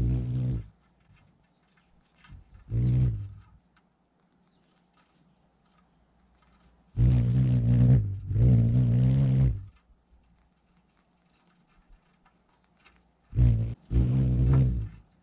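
Hummingbirds' wings humming as they hover close to the feeder: a low hum with a thin high buzz on top. It comes in separate passes: one at the start, a short one about three seconds in, a longer double pass from about seven to nine and a half seconds, and another near the end.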